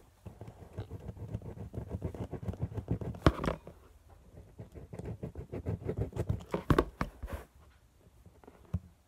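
Fingernail tapping and scratching on a smooth, hard, rounded object: a fast run of close clicks and scrapes, with louder taps about three seconds in and around seven seconds, thinning to a few clicks near the end.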